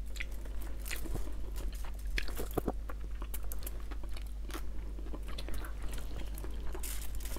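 People eating by hand: chewing and crunching food, with scattered clicks and smacks.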